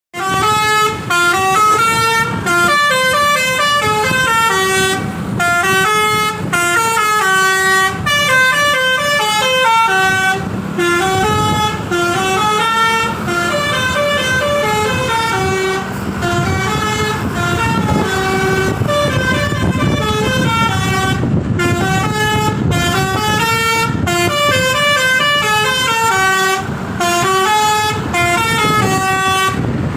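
A bus's basuri telolet horn playing a tune: loud horn notes stepping up and down in pitch, phrase after phrase with short breaks, over a low rumble.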